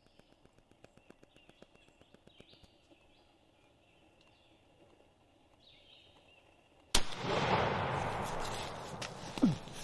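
Quiet woods with faint songbird chirps, then a single shotgun blast about seven seconds in, its report rolling on for about two seconds as it fades.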